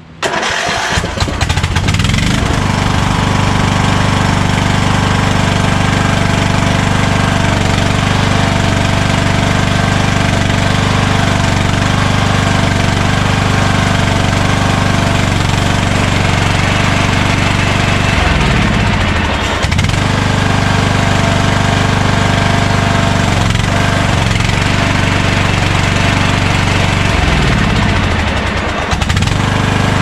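Craftsman lawn tractor's engine starting on a newly fitted ignition switch, catching almost at once and then running steadily. Twice in the second half the engine speed drops away and picks back up.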